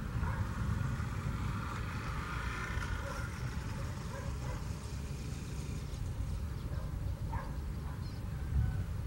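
Boeing 737-700's CFM56-7B jet engines running at taxi power as the airliner turns to line up on the runway for takeoff: a steady low rumble with a thin engine whine that is most noticeable in the first few seconds.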